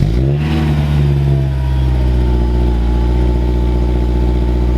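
Honda S2000's four-cylinder engine just after starting: the revs flare and drop within the first half second, then it settles into a steady idle.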